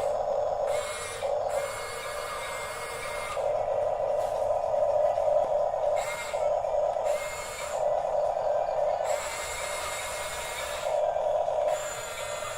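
Small electric motors and gearboxes of a Huina 1554 RC bulldozer whining in stop-start bursts of half a second to three seconds, as the controls are worked.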